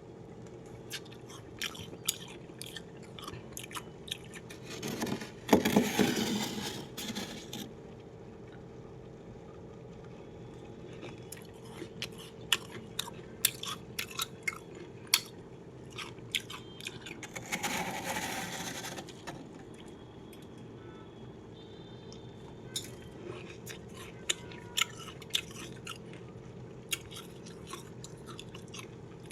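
Freezer frost being bitten and chewed close to the microphone: scattered sharp crunches, with two longer, louder stretches of crunching about five seconds in and again after about seventeen seconds. A steady low hum sits underneath.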